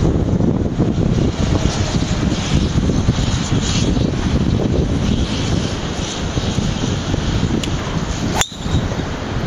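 Steady wind buffeting the microphone, then about eight seconds in a single sharp crack as a Nike VR Tour 8.5° driver strikes a golf ball, with a brief high ring.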